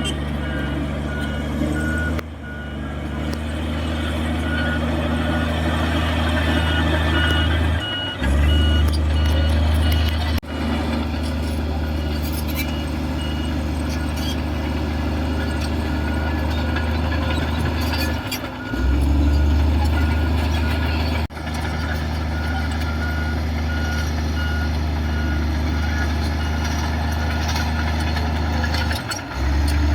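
Diesel engine of a heavy earthmoving machine running under varying load, swelling louder three times, with its reversing alarm beeping steadily for long stretches.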